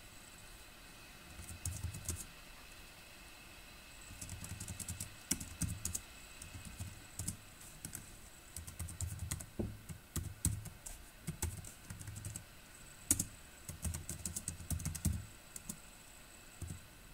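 Typing on a computer keyboard: a short run of keystrokes about two seconds in, then quick runs of keystrokes broken by brief pauses through most of the rest.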